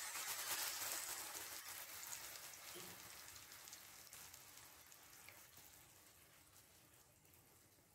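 Mushrooms sizzling in a frying pan, the sizzle fading away steadily as cold cream is poured in and cools the pan.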